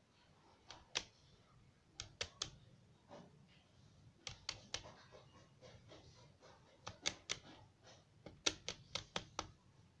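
Plastic calculator keys clicking under an Indian ringneck parrot's feet: sharp clicks, some single and some in quick runs of two to four, about fifteen in all.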